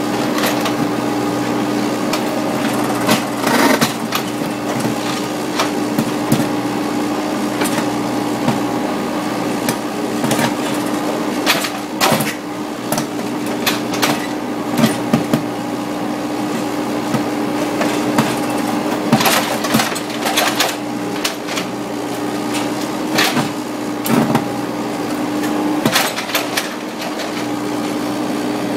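Kobelco SK30SR mini excavator's diesel engine running steadily while its mini crusher attachment breaks a concrete wall, with a handful of sharp cracks and crunches of concrete scattered through.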